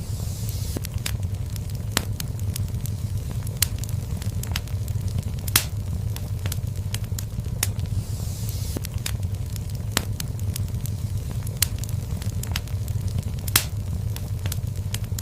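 Wood fire burning in a fireplace: a steady low rumble with irregular sharp crackles and pops, and now and then a brief hiss.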